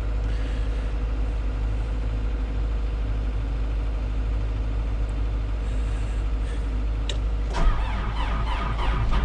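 Steady idling hum of a diesel machine. About seven and a half seconds in, the CAT 420F backhoe's diesel engine is cranked and fires on a cold start after its glow plugs were held, and the sound swells as it catches and runs.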